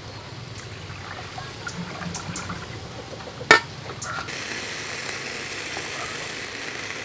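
Marinated quail sizzling on a wire grill over a charcoal stove: a steady hiss that starts abruptly about four seconds in. Just before it comes one sharp metallic clank of tongs.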